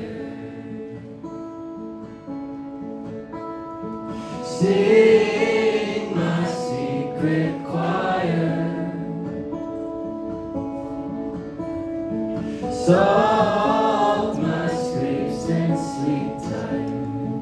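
Live indie rock band playing a song: held keyboard and guitar chords, with singing that comes in about four seconds in and again about thirteen seconds in.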